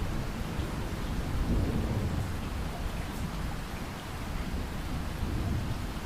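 Steady rain with a continuous low rumble of thunder, swelling slightly about a second and a half in.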